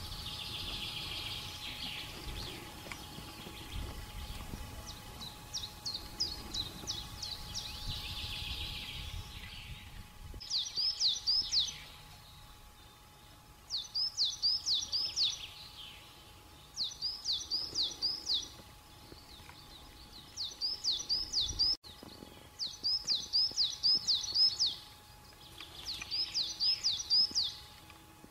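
A songbird singing a short phrase of four or five quick, high whistled notes, repeated about every three seconds. A low rumble fades out about ten seconds in.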